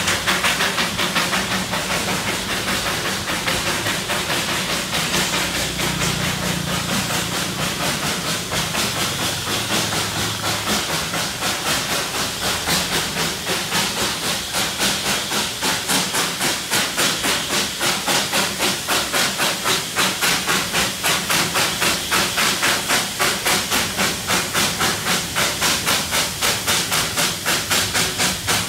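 Darjeeling Himalayan Railway narrow-gauge steam locomotive working hard with a heavy three-coach train on the climb: even chuffing exhaust beats, about two to three a second, over a steady hiss of steam. The beats grow sharper and more regular about halfway through.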